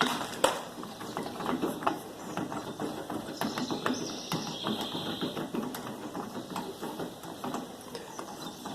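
A screw being unscrewed by hand from a car's interior door panel: a run of light, irregular clicks and ticks.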